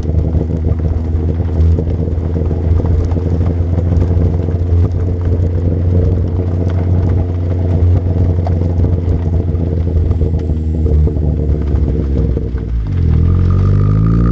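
A Chevy Sonic RS's turbocharged 1.4-litre four-cylinder sounds through a ZZP turboback exhaust. It holds steady revs with a low drone, then rises in pitch as it revs up near the end.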